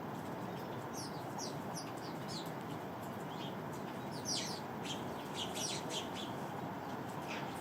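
Sparrows chirping: a scatter of short, quick chirps, busiest in two runs near the start and middle, over a steady low background noise.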